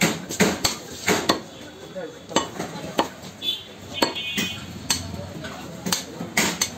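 Large butcher's knife chopping pieces of cow heart on a wooden log chopping block: sharp, irregular chops about two a second.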